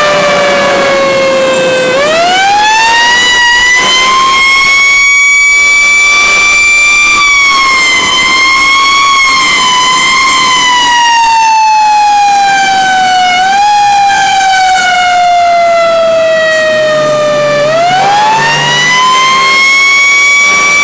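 Fire engine siren, heard from the truck's cab: it falls in pitch, winds up quickly about two seconds in, then slowly sinks over some fifteen seconds before winding up again near the end.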